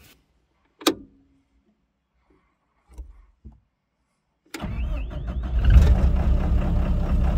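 A knock and a few faint clicks as the key goes into the ignition, then a little past halfway the ASV RT-120 skid steer's diesel engine starts abruptly and runs on loud and steady.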